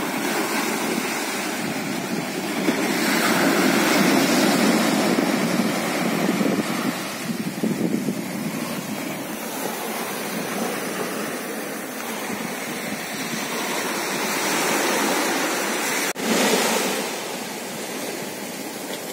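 Sea surf washing in over a rocky shoreline: a continuous rush of water that swells louder a few times and ebbs again.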